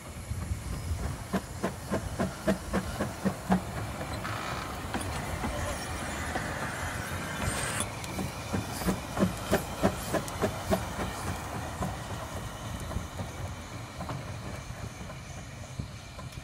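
Penrhyn Mainline Hunslet saddle-tank steam locomotive running past slowly, with regular beats about two to three a second. A hiss of steam comes in the middle for about four seconds and cuts off suddenly, and the sound eases as the engine moves away.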